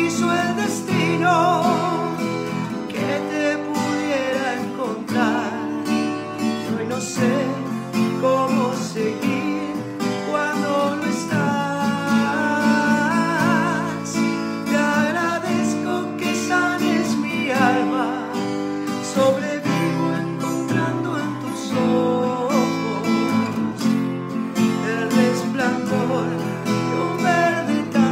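A man singing a rock song in Spanish, his held notes wavering with vibrato, to his own strummed steel-string acoustic guitar.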